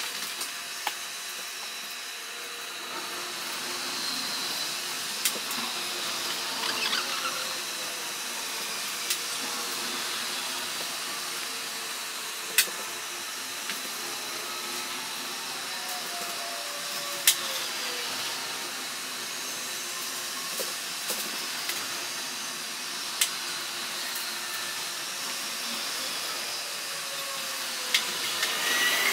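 Steady hiss of highway traffic, with faint tones of passing vehicles slowly gliding up and down, and a few sharp clicks scattered through.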